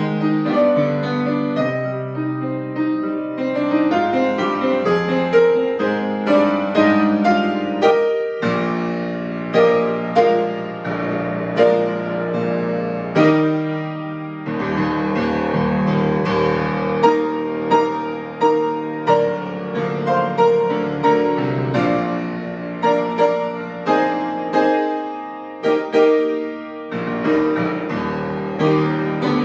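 Solo piano playing a hymn arrangement: struck chords under a melody line, notes ringing and fading between strikes.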